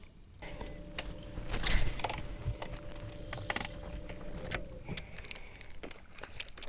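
Fishing reel being cranked to retrieve a lure: a steady gear whir with clicks that starts about half a second in and stops after about four seconds.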